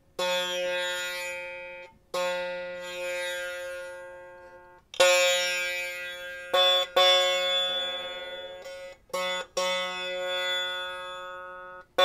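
Long-necked wooden stringed instrument plucked about seven times, with a wooden dowel held against the neck to stop the strings. Each note rings out bright at much the same pitch and dies away before the next pluck.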